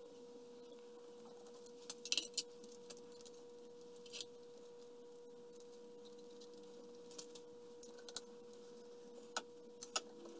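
A few sharp metallic clicks and clinks of small steel hand tools being handled against the lathe chuck and workpiece, clustered about two seconds in and again near the end, over a faint steady hum.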